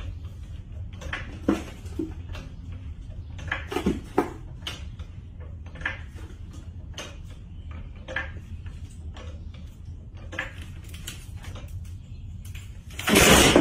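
Hydraulic floor jack being pumped by its long steel handle: irregular metallic clicks and clanks every second or so over a steady low hum, then a loud burst of noise near the end.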